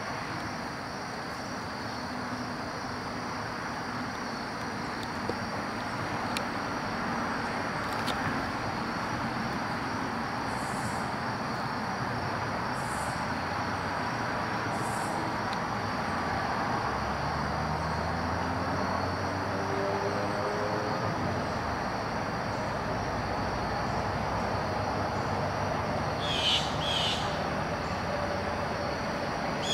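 Woodland ambience: a steady rushing background with a constant high drone. A distant vehicle's engine rises in pitch over several seconds past the middle, and a short burst of bird calls comes near the end.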